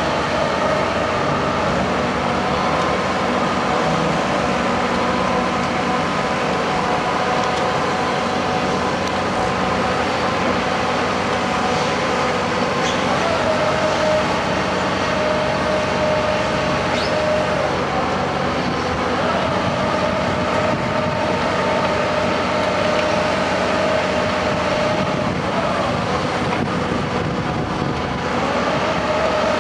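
Heavy diesel construction machinery running steadily, with a whining tone that steps up and down in pitch a few times.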